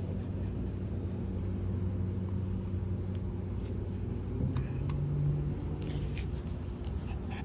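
A steady low mechanical hum, like an engine or motor running. About four and a half seconds in, a second tone rises in pitch, holds for about a second, then fades.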